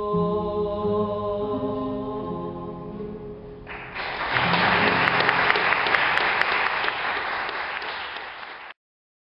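A song ends on a held sung note over ringing acoustic guitars, fading, then about four seconds in an audience breaks into loud applause, which cuts off abruptly near the end.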